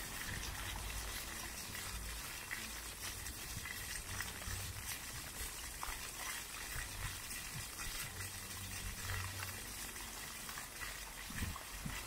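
Several ground-level fountain jets spraying up and splashing back onto paving stones, a steady noise of falling water.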